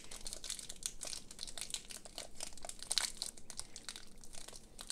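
The crinkly plastic film wrapper of a nut-and-caramel snack bar being torn and peeled open by hand: a dense run of sharp crackles, loudest about three seconds in.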